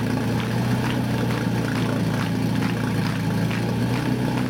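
Portable fire-fighting pump's engine running steadily at a constant speed, a low even hum with a dense rattling clatter over it.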